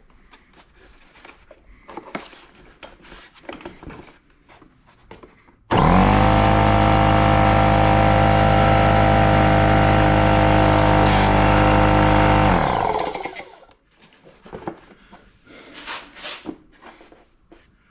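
Porter Cable pancake air compressor's electric motor and pump switching on abruptly, running steadily for about seven seconds, then shutting off and winding down. Light clicks and handling noises before and after.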